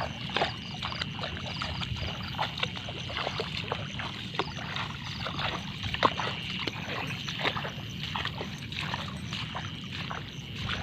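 Irregular small splashes and sloshing of shallow water, with a steady high-pitched trill in the background.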